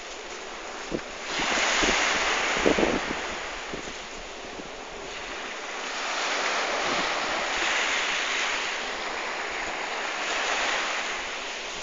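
A rushing, hissing noise that swells and eases three times, with a few short knocks about a second in and again near three seconds.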